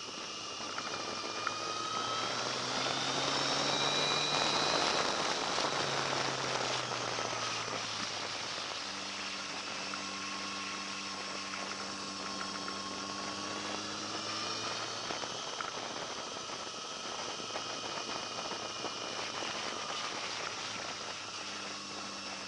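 Motorcycle engine under way, its revs climbing hard about two to five seconds in, dropping back, then climbing steadily again, under a heavy rush of wind noise.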